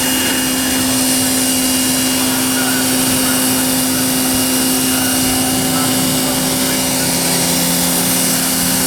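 Pressure washer running steadily: a constant motor hum under the hiss of the spray.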